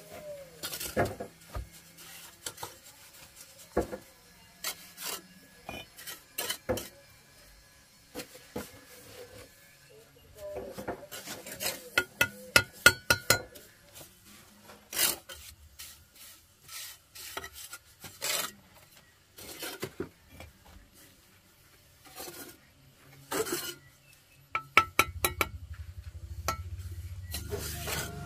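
Hand tools at work, likely on masonry: irregular scraping and rubbing broken by sharp clinks and knocks, some ringing briefly. A low rumble comes in near the end.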